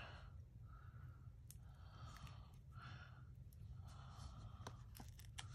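Near silence: soft breaths about once a second, with a few faint clicks from small paper pieces and foam adhesive dots being handled.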